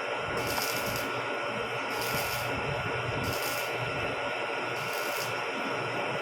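Metalworking machine tool running steadily with a constant whine, a high hiss swelling and fading about every one and a half seconds.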